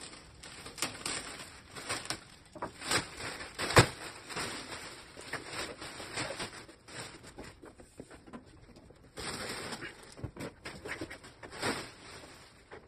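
Plastic stretch wrap crinkling and tearing as it is cut and pulled off a new bandsaw, in irregular crackles with a sharp knock a few seconds in and a longer tearing rustle after about nine seconds.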